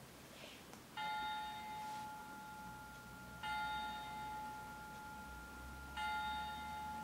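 A recorded bell sound effect from an Usborne touch-feely sound book: a bell struck three times, about two and a half seconds apart, each strike ringing on and slowly fading.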